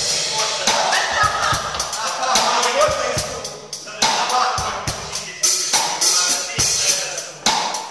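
Live band music: a drum kit keeps a steady beat, with a pitched lead line over it.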